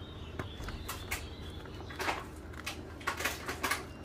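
Short clicks and rustles of a speedometer circuit board and metal tweezers being handled on a workbench, the loudest about two seconds in and a cluster near the end, over a low steady hum.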